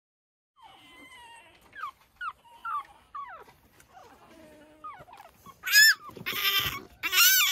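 Pekingese puppy whining: faint, short squeaky whimpers at first, then about three-quarters of the way in, three loud, high-pitched cries.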